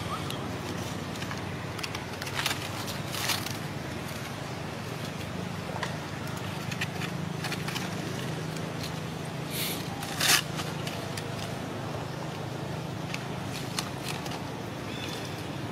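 Outdoor background with a steady low hum, broken by scattered sharp crackles and scrapes; the loudest come as two close together early on and two more about two-thirds of the way through.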